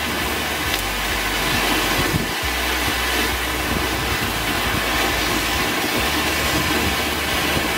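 Ground fountain firework (flower pot) spraying golden sparks, giving a steady, loud hissing rush.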